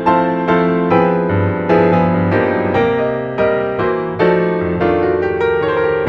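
Background music on piano, notes struck about twice a second over a steady bass.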